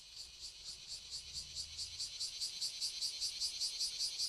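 An insect calling in a fast, even pulse of high-pitched chirps, about five or six a second, growing steadily louder.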